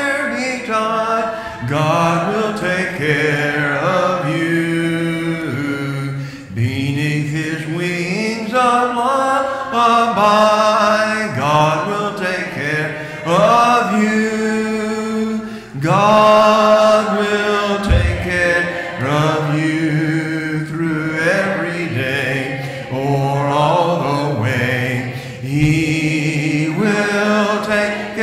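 A hymn being sung, the voices holding each note for a second or two.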